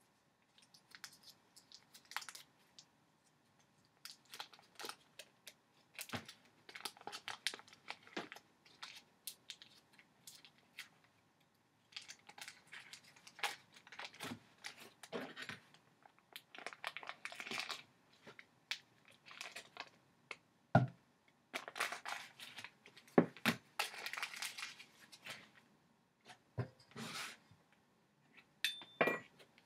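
Butter wrapper being crinkled and peeled off a stick of butter by hand, in irregular rustling bursts with short pauses, with a few sharper knocks about two-thirds of the way in.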